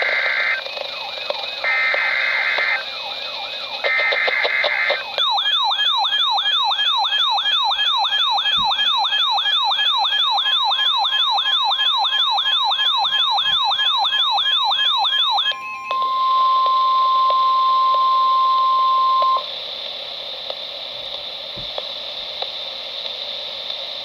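RadioShack weather radio sounding an emergency alert through its small speaker. First come the last three bursts of the SAME digital header, screechy data tones about a second each. Then a warbling siren alarm sweeps up and down about three times a second for some ten seconds, then the steady single-pitched NOAA warning alarm tone holds alone for a few seconds, and the radio drops to a low hiss before the voice message.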